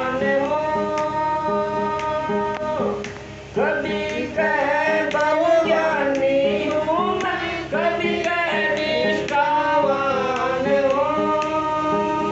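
Male voice singing a Hindi devotional shabad with long, wavering held notes, over folk instrumental accompaniment: a steady repeating drone and regular percussive clicks.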